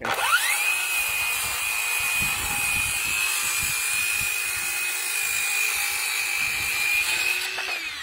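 Ryobi cordless circular saw spinning up with a quickly rising whine and crosscutting a 2x6 board, its pitch holding steady under load for about seven seconds, then winding down with a falling whine near the end.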